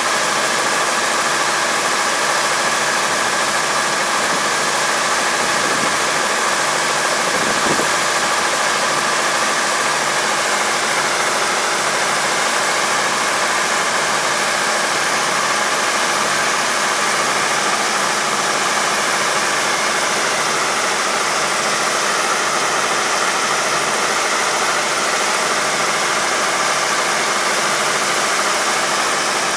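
Four-row rice combine harvester running steadily while its unloading auger empties grain into a truck: a loud, even engine-and-machinery noise with a few held tones.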